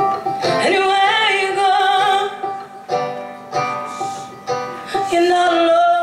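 Live folk band playing a song: a woman sings held notes with vibrato over picked banjo and strummed acoustic guitar.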